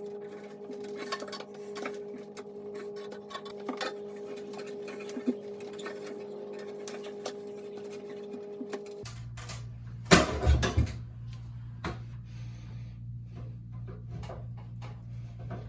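A long flathead screwdriver prying at a sheet-metal bathroom exhaust fan housing to break the metal clips holding it to the wood: irregular metal scraping and clicking, with one louder bang about ten seconds in, over a steady low hum.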